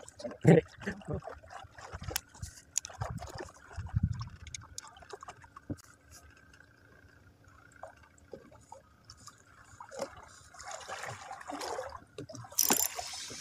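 Light water sounds and scattered small clicks and knocks around a small boat. Near the end a spinning fishing reel starts up with a loud buzzing, ratcheting run.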